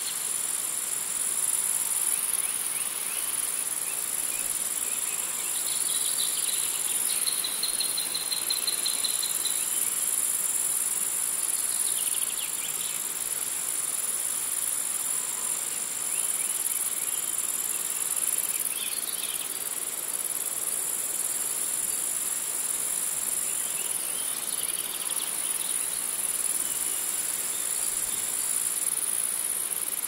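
Insect chorus: a steady high-pitched drone, with a lower chirping trill breaking in several times, the longest about six to ten seconds in.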